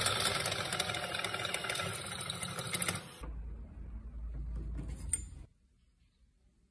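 Bosch bench drill press boring a twist drill into a metal block held in a drill-press vise: a dense rattling cut with rapid clicking. About three seconds in the cutting stops, and a low hum with a few clicks follows.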